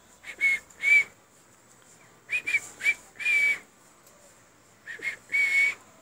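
Short whistled notes at one steady high pitch, in three groups: a pair near the start, a quick run ending in a longer note about two seconds in, and the same again near the end.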